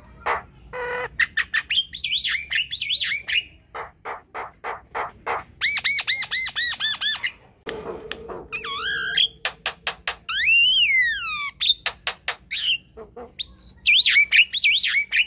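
Javan myna singing a long, varied song: runs of clicking notes, harsh squawks, and whistled notes that rise and fall, including one long arching whistle about two-thirds of the way through.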